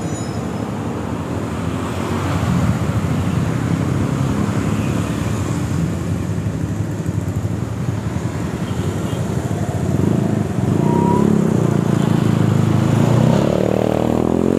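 Street traffic with motorbike engines running close by. In the last few seconds an engine gets louder and rises in pitch as it speeds up.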